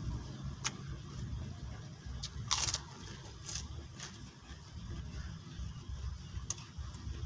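Close-up mouth sounds of a person chewing a hand-fed mouthful of grilled chicken and rice, with short wet clicks and one louder crunch about two and a half seconds in. A steady low rumble lies underneath.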